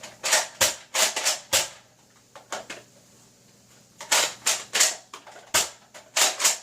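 Sharp plastic clicks and clacks of a Nerf Tri-Strike blaster being worked by hand: a quick run of about five in the first second and a half, then another run of about six from about four seconds in.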